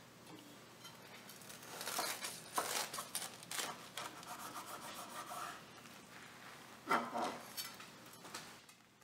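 A knife sawing through thick toasted bread on a wooden cutting board: crisp crunching and rasping of the toasted crust in a run of strokes, then one sharper, louder crunch about seven seconds in as the cut goes through.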